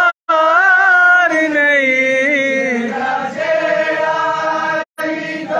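A man chanting devotional verse (manqabat) into a microphone over a PA, drawing out long, wavering held notes. The sound cuts out completely for a moment twice.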